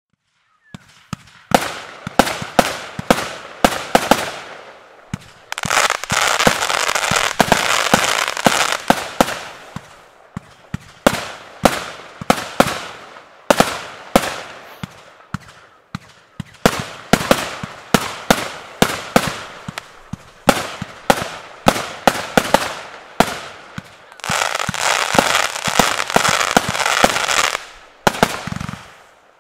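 Zeus Fireworks 'Matrix' single-ignition firework cake firing: a rapid, uneven string of sharp shots and bursts. Two long stretches of dense crackling come about six seconds in and again near the end.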